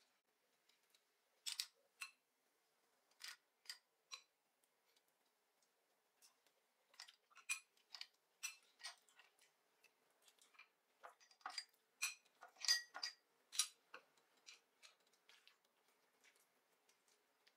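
Clam shells and kitchen tongs clicking against each other and against ceramic pasta plates as spaghetti with clams is plated. The sharp clicks are scattered, a few near the start and then a busier run from about seven to fourteen seconds in.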